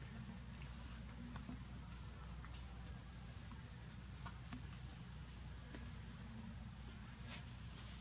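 Insects droning steadily in the background, one constant high-pitched tone, with a few faint clicks scattered through it.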